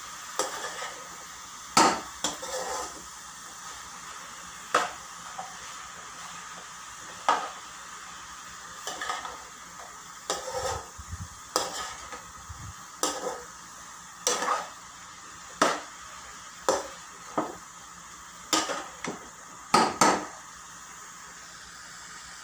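Metal spatula stirring vegetables in a frying pan, scraping and clacking against the pan about once a second, over a steady sizzle of frying.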